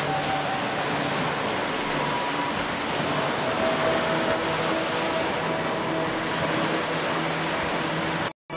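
Ocean surf: small waves breaking and washing up on a sandy beach in a steady rush. It cuts off suddenly near the end.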